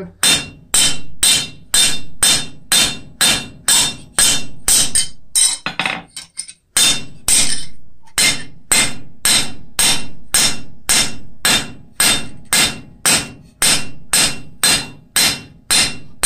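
Hand hammer striking the edge of a cold steel cross blank held on the anvil, about two blows a second, each ringing briefly: cold-forging bevels and texture into the edges. The blows pause briefly about six seconds in, then go on at the same pace.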